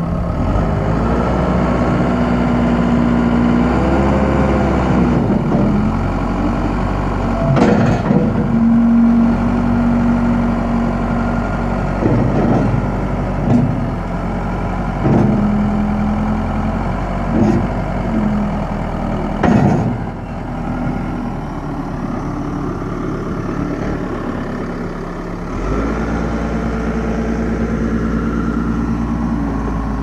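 Case 4T390 four-cylinder diesel engine of a Case 580 Super L backhoe running under load as the loader is worked, its note shifting up and down. A handful of sharp knocks come in the middle stretch.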